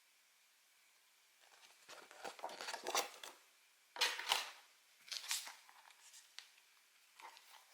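Pokémon card packaging being torn open and crinkled by hand, in several bursts of crinkling and tearing, the sharpest about four seconds in, followed by softer rustling.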